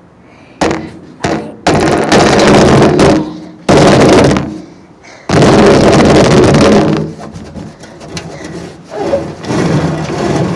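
Loud handling noise on a phone's microphone: sudden bursts of rubbing and knocking, several of them lasting one to two seconds, most of them in the first seven seconds.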